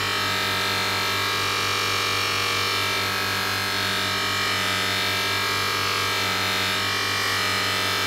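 Background electronic music with held synthesizer tones over a steady hiss.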